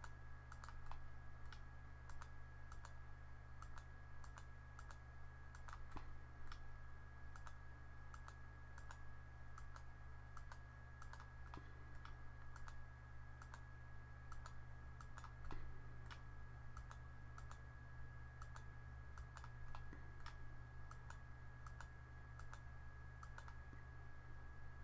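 Computer mouse buttons clicking at an uneven pace, roughly one to two clicks a second, as lines are picked one after another, over a faint steady electrical hum and a thin steady whine.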